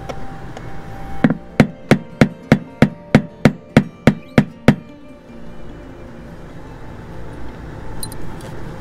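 Hammer tapping a steel tool into the head of a broken-off screw to start a hole: about a dozen sharp metal strikes, roughly three a second, that stop a little before the halfway point.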